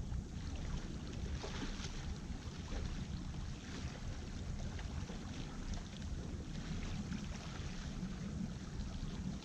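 Wind buffeting the microphone, a steady low rumble that rises and falls unevenly, with faint washing of small waves against the rocks of the shore.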